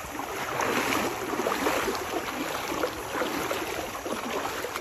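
Two people wading through a shallow river in boots, the water splashing and sloshing around their legs with each step.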